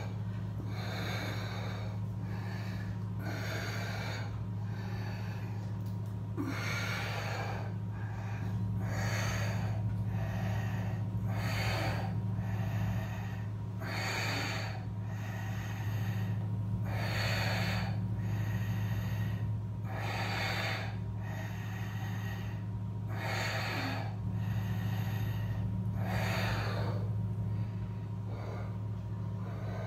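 Audible throat breathing of an Ashtanga yoga practitioner holding a pose, in the ujjayi style: noisy breaths in and out, roughly one every second and a half. A steady low hum runs underneath.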